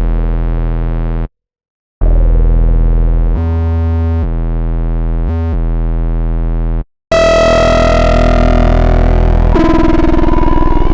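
UVI Cameo software synthesizer presets playing. First comes a deep, buzzy bass tone in long held notes that steps between pitches a few times, then, about seven seconds in, a brighter, fuller sound with a falling sweep takes over.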